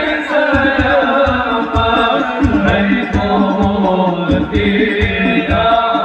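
Sholawat, Islamic devotional songs in praise of the Prophet, sung live by a group of voices over a steady drum beat and played through loudspeakers.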